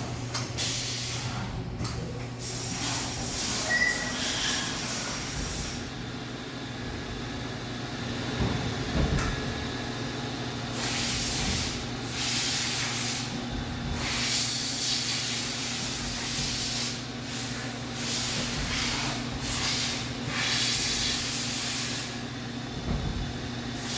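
Coolant wash system of a Fadal VMC 4525 machining center spraying in repeated spells of hiss, each lasting one to three seconds and cutting on and off, over the machine's steady hum.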